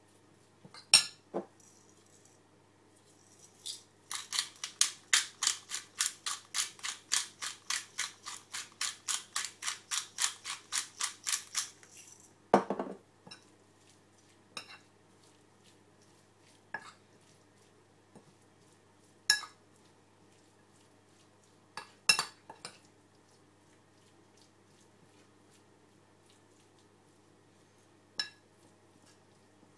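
Metal spoon clinking against a ceramic bowl as salad is stirred. A couple of clinks come first, then an even run of about three clinks a second for some eight seconds, then single clinks a few seconds apart.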